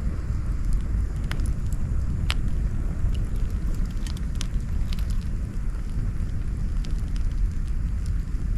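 Wood campfire burning, with scattered sharp crackles and pops over a steady low rumble.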